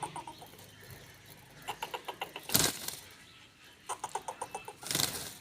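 Pet parrot calling: two runs of quick clicking chatter, each ending in a short harsh squawk.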